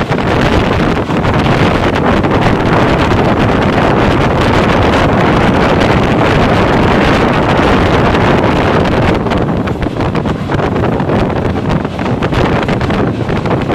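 Express passenger train rushing through a station at full speed: a loud, steady roar of the passing coaches, heavily buffeted by wind noise on the microphone.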